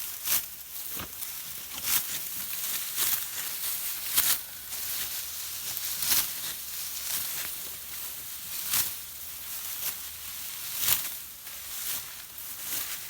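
Dry rice stalks rustling and swishing in irregular strokes, roughly one a second, as the rice is harvested by hand.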